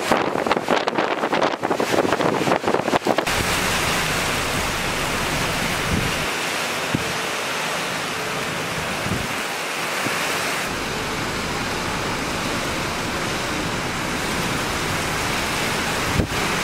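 Hurricane wind buffeting the microphone in uneven gusts, giving way about three seconds in to a steady rush of wind and driving rain.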